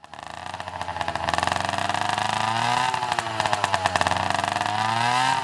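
Small two-stroke engine running with a rapid popping pulse. It fades in, and its pitch rises and falls with the throttle a couple of times.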